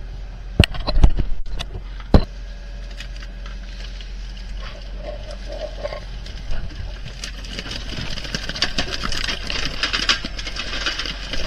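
Fishing boat's engine humming steadily under deck work. Several loud, sharp knocks come in the first two seconds, then a busy, irregular clatter builds through the second half as yellowtail are sent down a metal chute into the blood-filled hold.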